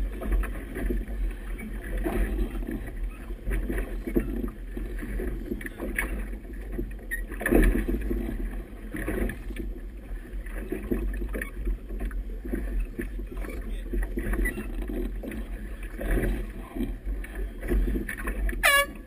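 Wind buffeting the camera microphone with a heavy rumble, over choppy water sloshing and slapping against a boat's hull in uneven surges. A brief falling squeak sounds near the end.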